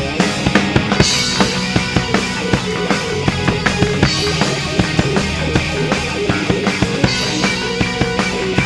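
Live rock band playing: electric guitars over a drum kit keeping a steady kick-and-snare beat, with a cymbal crash every three seconds or so.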